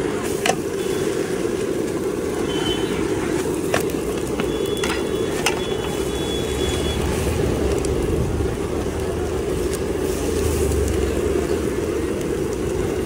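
Steady roar of a gas burner under a flat griddle, with a few sharp clinks of a metal spatula against the pan in the first six seconds.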